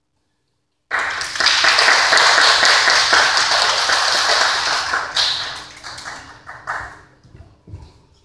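Small audience applauding: it starts suddenly about a second in, stays full for about four seconds, then thins to scattered claps and dies away near the end.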